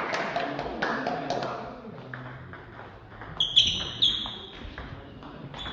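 Table tennis rally: the ball clicking off paddles and the table in quick, uneven strokes. Sports shoes give a couple of short, high squeaks on the hall floor about halfway through, the loudest moment.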